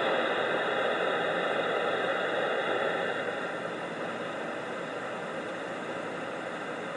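Radio receiver hiss and static on an open channel between transmissions, a steady noise that gradually gets quieter over the first few seconds.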